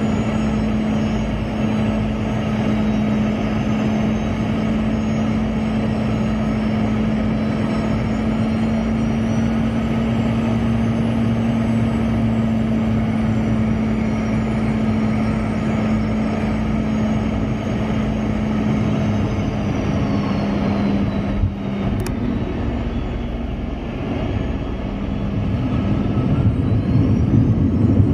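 Boeing 717's Rolls-Royce BR715 turbofan engines running, with a steady hum and a high whine that drifts in pitch. About 21 seconds in the hum steps down and there is a short click; near the end a louder low rumble builds.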